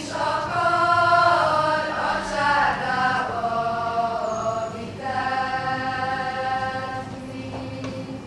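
A group of young female voices singing a Hungarian folk song in unison, in long held notes.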